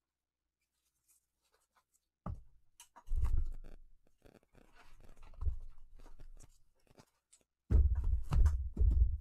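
Stack of trading cards in rigid plastic toploaders handled in gloved hands: plastic rubbing, scraping and clicking, starting about two seconds in, with dull thumps of knocks close to the microphone about three seconds in and again near the end.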